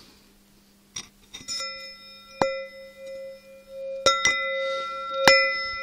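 A metal disc struck several times, each strike ringing like a bell with a clear tone that hangs on between strikes. The first taps are light, and from about two and a half seconds in the strikes are firmer.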